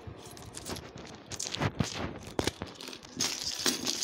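Plastic packaging and bags crinkling as parts of a small tool kit are handled, with a series of sharp clicks and light knocks, the loudest in the middle, and a burst of crinkling near the end.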